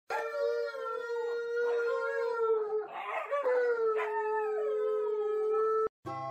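A dog howling: one long, drawn-out howl that wavers slightly in pitch, turns rough for a moment near the middle and cuts off suddenly just before the end.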